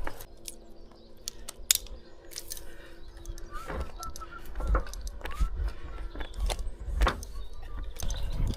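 Metal climbing hardware clinking and knocking in scattered light clicks, with a faint steady hum through the first few seconds.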